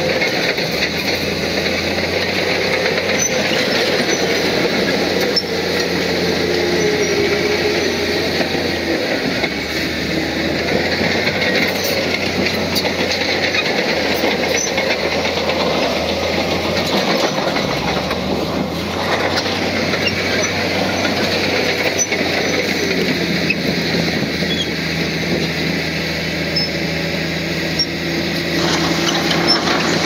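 Crawler bulldozer working: its diesel engine runs steadily under load while its steel tracks clatter, and the engine note shifts in pitch several times.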